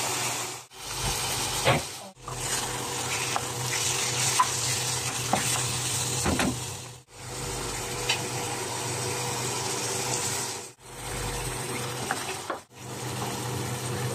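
Chicken and sauce frying and sizzling in a non-stick pan, with a few sharp clicks and scrapes of a utensil against the pan. The sizzle breaks off abruptly several times and resumes.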